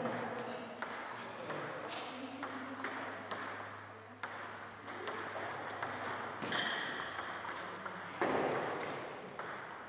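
Table tennis ball clicking irregularly off bats and tables, with a louder stroke about eight seconds in, over a murmur of voices.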